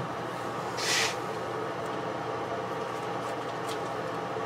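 Small exhaust fan of a plywood spray-paint booth running steadily with an even hum. About a second in there is a brief hiss.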